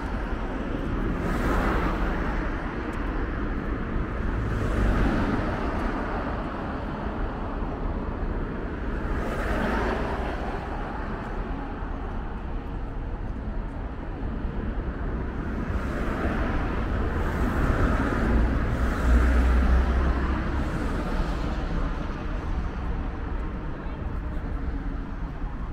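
City road traffic: a steady hum of car engines and tyres on a multi-lane street, swelling several times as vehicles pass close by.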